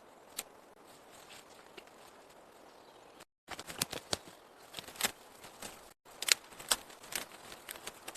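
Irregular sharp taps and cracks over a faint hiss. The sound cuts out completely for a moment twice.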